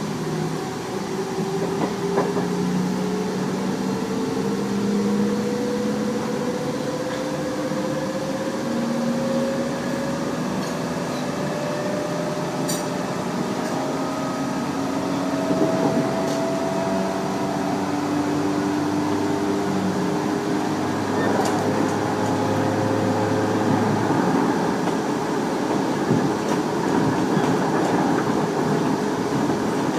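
Tobu 30000 series electric train running, heard from inside the car: the traction motor and inverter whine climbs steadily in pitch over the first dozen seconds as the train gathers speed, then settles into steadier tones over the rumble of wheels on rail. The uploader believes this unit has permanent-magnet synchronous motors (PMSM).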